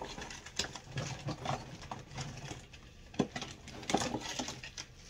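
Hands rummaging through a cardboard box of makeup, small plastic cosmetic packages clicking and knocking against each other in a run of irregular light clatters.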